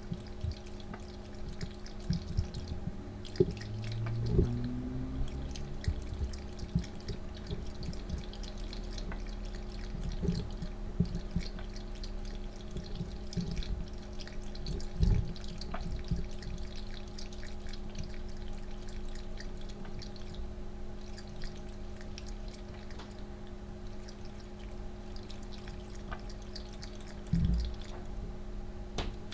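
Electric pet water fountain trickling, its pump humming steadily, while a cat laps from the stream with many irregular soft clicks and small splashes.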